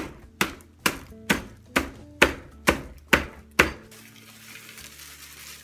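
A heavy object pounding a plastic bag of vanilla cookies on a countertop to crush them into crumbs: nine sharp whacks, about two a second. They stop near the end, giving way to a soft rustle of the plastic bag as the crumbs are poured out.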